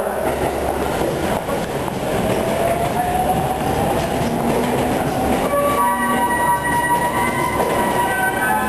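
Electric commuter train running close alongside the platform: wheels rumbling on the rails, and a motor whine that slowly rises in pitch as it gathers speed. About five and a half seconds in, several high steady whining tones come in over the rumble.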